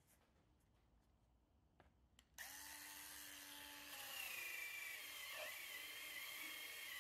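A handheld rotary tool with a bristle brush attachment starts about two and a half seconds in and runs with a steady high whine, scrubbing a small rubber toy tire in a tub of water.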